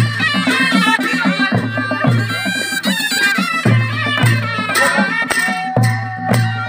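Nepali panche baja band playing: a shehnai carries a wavering, ornamented melody over steady drum strikes and bright cymbal clashes.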